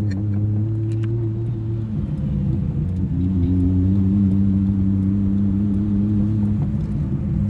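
Nissan R32 Skyline's tuned RB straight-six engine running on the move, heard from inside the cabin: a steady engine drone at an even pitch.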